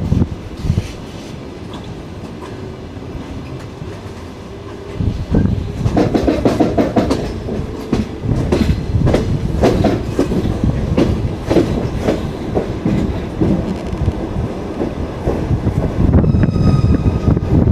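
Passenger train carriage wheels running over the rails, quieter for the first few seconds, then a dense irregular clatter of clacks over rail joints and points from about five seconds in. A brief high-pitched squeal comes near the end.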